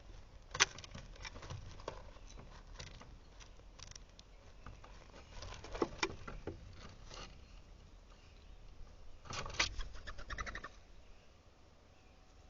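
Scattered taps and clicks of birds at a feeder, pecking and landing close to the camera, with a quick run of taps about nine to eleven seconds in.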